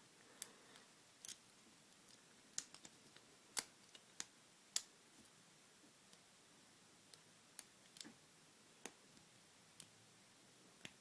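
Faint, irregular small metallic clicks of a lock pick and tension wrench working the pin tumblers inside an Abus 60/40 padlock during single-pin picking, with the pick reaching for the hard-to-reach back pin.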